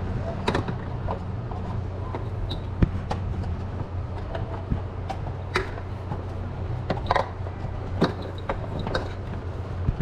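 Power cables and plugs being handled, with scattered clicks and knocks over a steady low hum.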